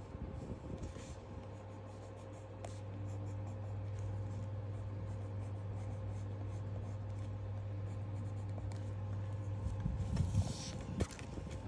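Coloured pencil scratching and rubbing on sketchbook paper as an area is shaded in, over a steady low hum. Near the end a few taps and a short rustle as the sketchbook page is handled.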